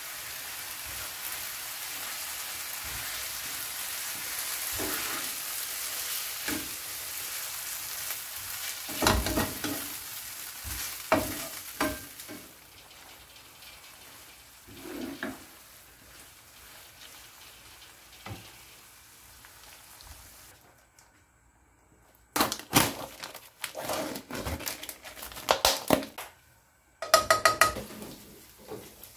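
Noodles and lobster sizzling in a frying pan while a wooden spatula stirs and scrapes through them, knocking against the pan now and then; the sizzle fades after about twelve seconds. Near the end, a run of sharp clatters and scrapes as lobster meat is pushed off a stainless steel tray into the pan.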